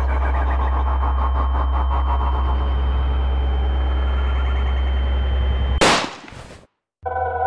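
Steady low drone of soundtrack ambience, then a single loud gunshot just under six seconds in that dies away within a second into dead silence. Synthesizer music begins near the end.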